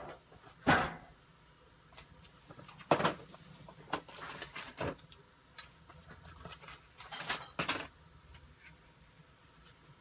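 Several short, irregular bursts of handling noise, the loudest about a second in and again about three seconds in, over a faint steady low hum.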